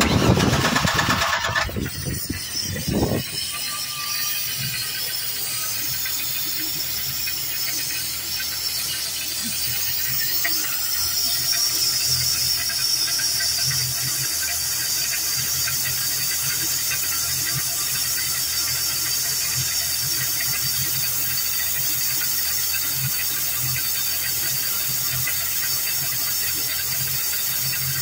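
Mercruiser 4.3L V6 marine engine with a two-barrel carburetor running steadily at idle, louder and rougher over the first few seconds. A steady high-pitched sound rides over the engine and grows stronger about eleven seconds in.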